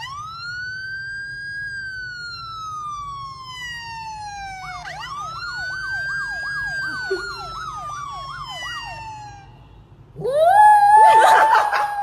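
Emergency-vehicle siren: one long wail that rises and slowly falls, then a second wail with a fast up-and-down yelp tone over it, about three sweeps a second. Near the end a louder, rougher wailing tone rises in and wavers as it holds, the loudest sound.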